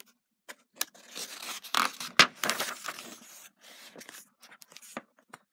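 Paper pages of a hardcover picture book being turned by hand: rustling and scraping of the paper, loudest about two seconds in with a sharp snap, then lighter rubbing as the page is smoothed down.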